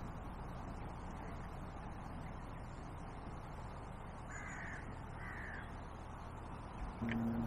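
A crow cawing twice, two short harsh calls close together near the middle, over a steady outdoor background hiss; a click near the end.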